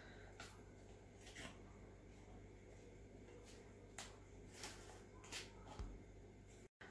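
Faint crinkling and crackling of a foil cream cheese wrapper being peeled open by hand, a few soft crackles scattered over near silence.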